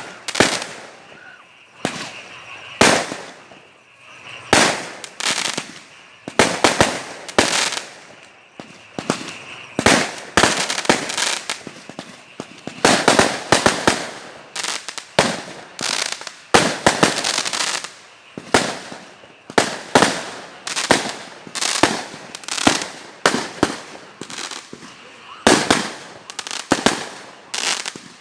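Fireworks going off in a rapid, irregular barrage: dozens of sharp bangs, often several a second, with crackling after many of them.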